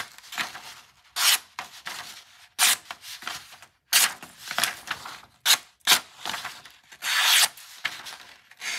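Folding pocket knife blade, the American Blade Works Model 1, slicing through paper in a series of short strokes, with a longer cut near the end.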